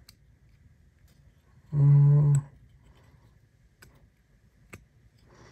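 A short hummed 'hmm' from a man about two seconds in, the loudest sound, with a few faint sharp clicks from a flipper folding knife being handled and worked in the hand.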